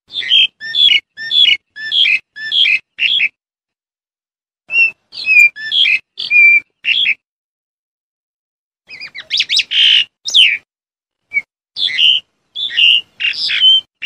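Black-collared starling calling: three bouts of quick, loud notes, with pauses of a second or two between them. The third bout, about nine seconds in, opens with a rasping stretch.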